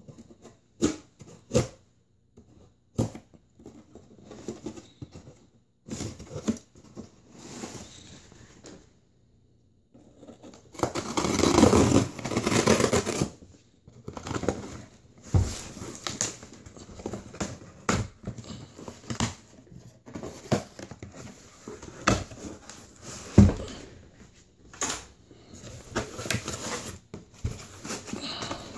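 Scissors cutting packing tape on a cardboard shipping box, with scattered snips, taps and rustles as the cardboard flaps are worked open. About eleven seconds in, a louder tearing and scraping lasts two or three seconds.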